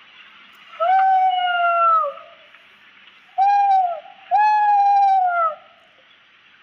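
Baby dinosaur call sound effect: three high, hooting cries, a long one, a short one, then another long one, each held steady and dropping in pitch at the end, over a steady hiss.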